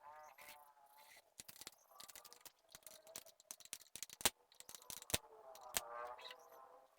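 Irregular sharp clicks and taps, some louder knocks about four and five seconds in, with a brief pitched voice-like sound at the start and again about six seconds in.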